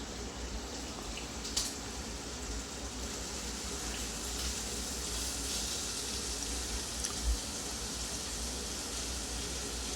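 Water running steadily from a tap into a sink, with a couple of light clinks.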